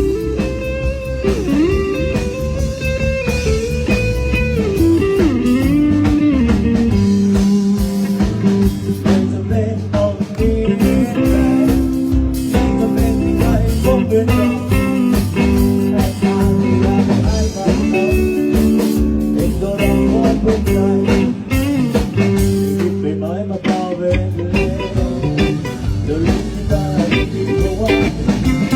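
Music with guitar, bass and drums, a bluesy melody line with bending notes over a steady beat.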